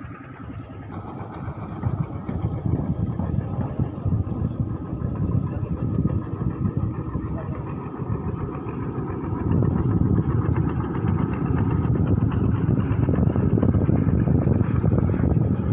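An engine running steadily and growing gradually louder.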